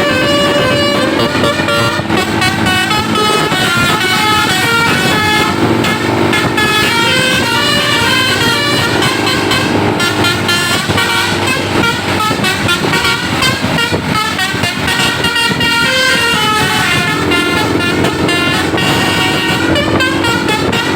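Telolet basuri bus horns playing continuous melodies: runs of clear, multi-tone notes stepping up and down in pitch.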